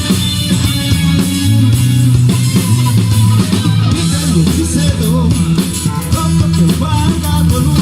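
Rock band playing: guitars over a steady bass line and drum kit.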